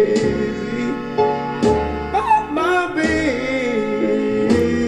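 A song with a lead vocal singing over piano and accompaniment, played back through Von Schweikert Vortex Screen loudspeakers driven by a Coda 11 amplifier.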